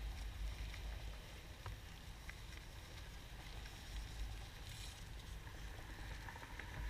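Wind rumbling on the camera microphone, with faint rustling and small clicks from gauze wrappers and latex gloves being handled, and one brief crinkle about halfway through.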